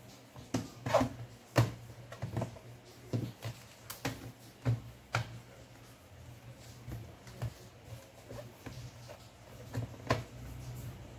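Irregular sharp clicks and taps of hands and tools on an Asus A409M laptop's plastic case during reassembly, a dozen or so over a steady low hum.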